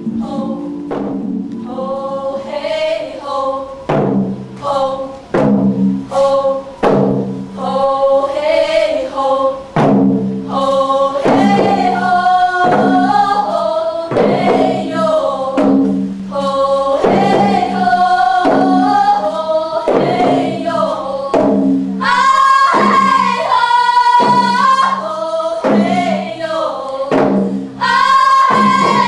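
Several voices singing a melody together over regular percussion strikes, as live stage music; in the later part the voices move up to a higher, louder line.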